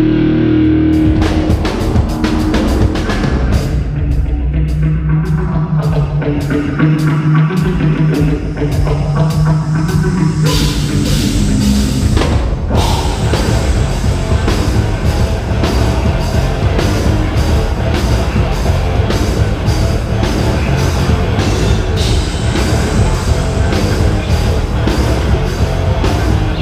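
A live rock band playing a heavy instrumental passage on drum kit, guitar and bass, with no vocals. Low held notes and sparse drum strokes come first; about ten seconds in, the full band comes in with cymbals.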